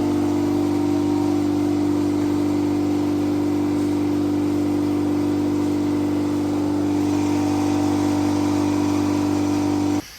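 A motor running at a steady speed with a low, even hum that cuts off suddenly near the end.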